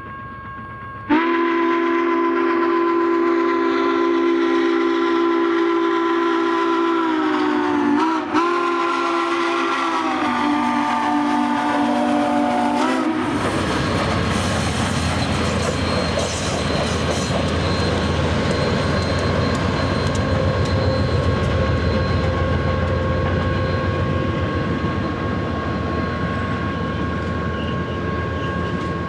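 Southern Pacific 4449's chime steam whistle blowing one long chord of several notes, briefly broken about eight seconds in, its pitch falling in steps towards the end. The whistle cuts off about thirteen seconds in, and the rumble and wheel clatter of the train's passenger cars rolling past follows.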